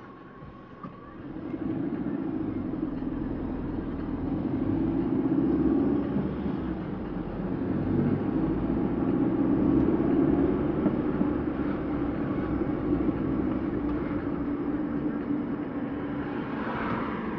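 Car engine and tyre noise heard from inside the cabin as the car pulls away from a standstill about a second in and drives on at city speed, with a short swish near the end.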